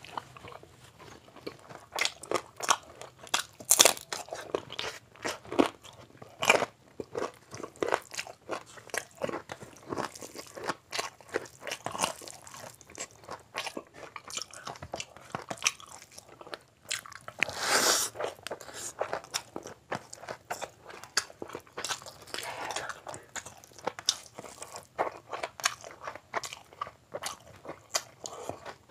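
Close-miked chewing and mouth sounds of a person eating biryani by hand: a continuous run of wet smacks and clicks, with a longer, louder sound about eighteen seconds in.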